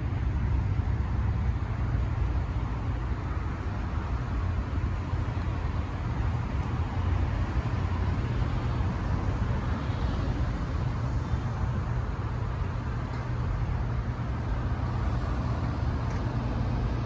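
Steady low rumble of road traffic, a continuous hum without distinct passing vehicles or other events.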